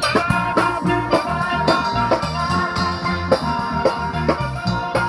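Live steel band playing an upbeat tune: steel pans ringing out the melody over a drum kit and a guitar, with a steady beat.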